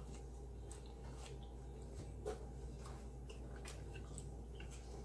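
Faint room tone with a steady low hum and scattered light clicks and taps, one a little louder about two seconds in.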